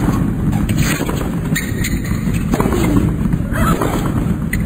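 Tennis rally: rackets striking the ball and the ball bouncing on a hard court, a few sharp hits spaced about a second apart over a steady low arena hum.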